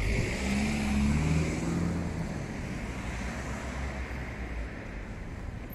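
A road vehicle drives past on the street, loudest in the first two seconds and then fading away.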